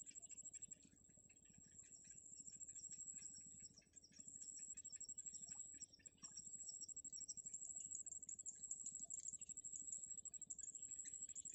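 Faint, rapid high-pitched cheeping of nestling birds in quick runs, over a steady high insect trill.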